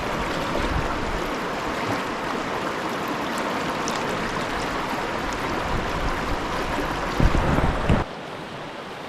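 Steady rush of a small mountain creek's water. Near the end there are a few low thumps, and then the sound drops suddenly to a quieter rush.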